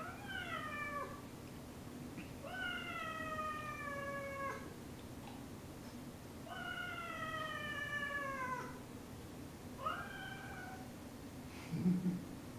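Domestic cat meowing four times. The first three meows are long and drawn out, each sliding slightly down in pitch; the last is shorter and rises.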